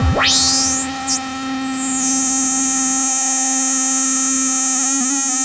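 MFB Dominion 1 analogue synthesizer playing a preset: a low steady drone under a tone that swoops down and then sweeps up very high in the first second or so, dips briefly, then holds a bright steady note. Near the end the upper notes start stepping quickly in pitch.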